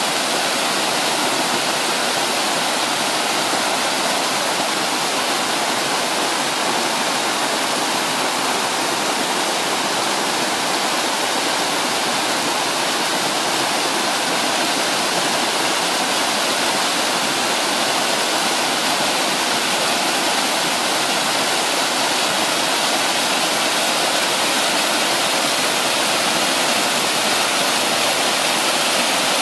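Creek in flood rushing over rocks and gushing out of a culvert pipe at a small hydro intake: loud, steady rushing water with no letup, the sound of high flood flow.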